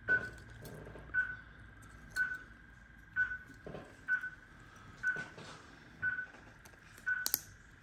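Anaesthetic patient monitor beeping a short, single high tone about once a second, in time with the anaesthetised dog's pulse. Faint clicks of steel dental extraction forceps sound between the beeps, the sharpest near the end.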